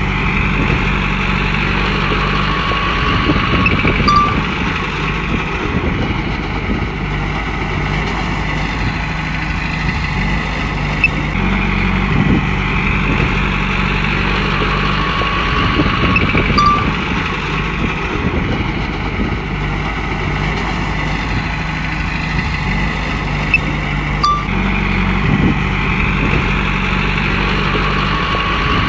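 Komatsu bulldozer working: its diesel engine runs steadily while a high whine from the machine swells and fades in repeated cycles every several seconds, with a few short knocks.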